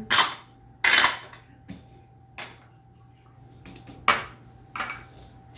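Metal kitchen utensils clinking and scraping against a stainless steel mixing bowl while meringue is folded: two sharp, ringing clinks within the first second, then several softer knocks and scrapes.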